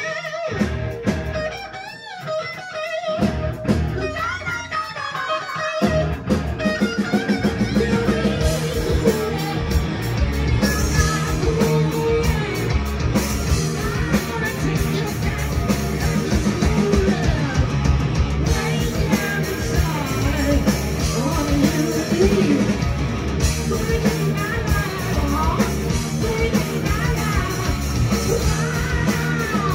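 Live rock band playing loud: electric guitars through Marshall amps lead for about the first six seconds, then bass and drums come in and the full band plays on.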